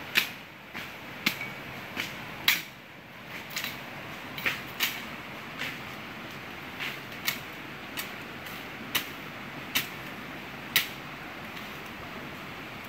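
Machete strokes slashing through grass and brush, a sharp swish-chop about once every half second to a second, some blows louder than others. No motor is running: the vegetation is being cut by hand.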